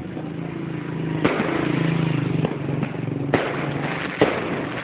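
Fireworks going off: sharp bangs about a second in and a little after three seconds, the loudest a little after four seconds, with smaller pops between them. A steady low hum runs underneath.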